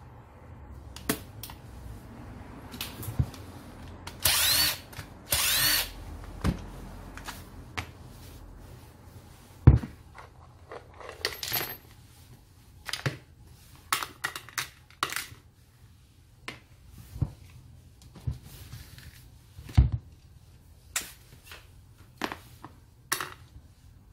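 Bench work on a partly dismantled Keyang ACT-100SN angle grinder: scattered clicks, taps and knocks of small metal parts and tools being handled, with small pieces clinking. Two short, loud hissing bursts come about four and five seconds in.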